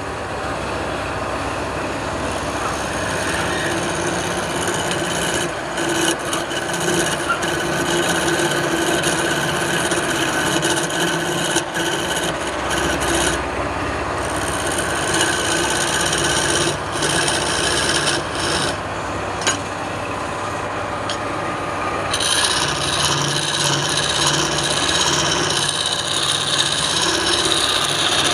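Wood lathe running while a turning tool cuts the spinning wood: continuous scraping over a steady motor hum, growing brighter and hissier about 22 seconds in.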